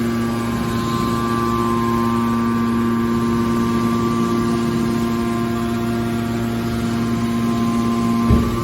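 Scrap car baler's hydraulic machinery running with a steady hum, with a single thump near the end.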